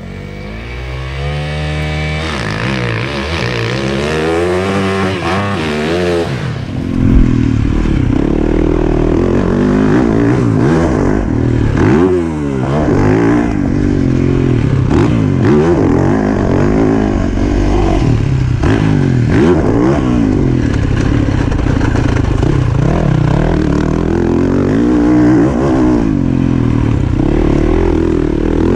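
A 2020 Yamaha YZ450FX, a 450cc four-stroke dirt bike, being ridden hard, its engine revving up and falling back again and again as the throttle is worked, every second or two.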